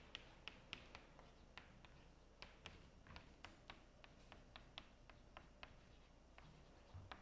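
Chalk writing on a blackboard: faint, sharp taps and clicks at irregular spacing, about three a second, pausing briefly near the end.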